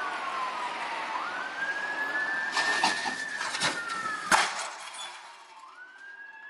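A siren wailing: the pitch glides down, jumps up and holds, then falls and rises again near the end. A rattle of knocks comes through the middle, and one sharp bang about four seconds in is the loudest moment.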